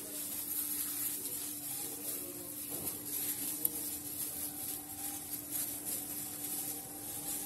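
Gloved hand mixing a spice and lemon-juice marinade into raw fish fillets in a glass dish: soft wet rubbing and squishing, over a steady low hum.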